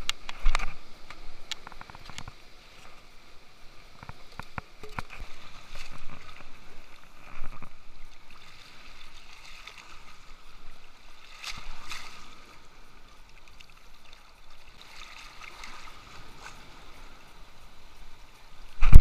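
Sea water washing and gurgling against shore rocks, swelling and easing every few seconds. A few small clicks and knocks in the first few seconds, and one sharp loud knock at the very end.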